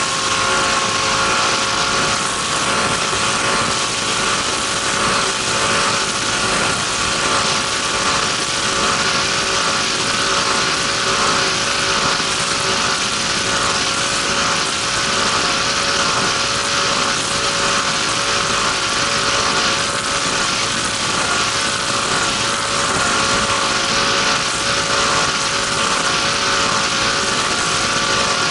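Race boat's engine running steadily at speed under way, with a constant rush of wind and water over the hull.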